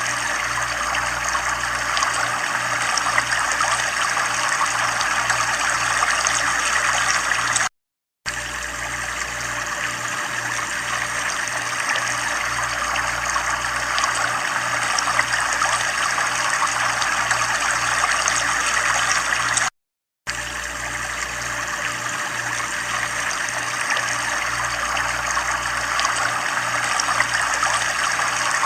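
Running water flowing and trickling steadily, with a faint low pulsing hum beneath. The sound cuts out completely for a split second twice, about 8 and 20 seconds in.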